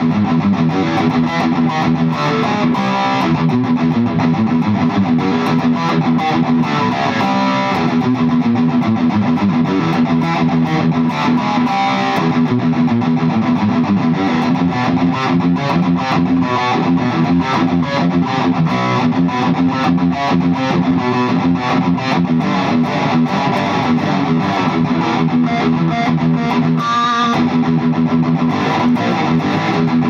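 Fender Troublemaker Telecaster electric guitar played through an amp: a continuous passage of fast picked notes and chords.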